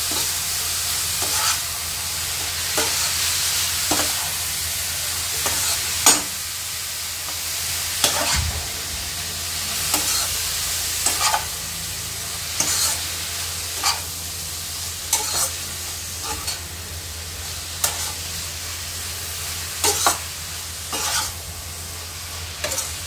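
Fried vermicelli sizzling in ghee with sugar and a splash of milk in a nonstick pan as the sugar melts on a low flame, while a spatula stirs it, scraping and knocking against the pan about once a second. The sizzle eases slightly toward the end.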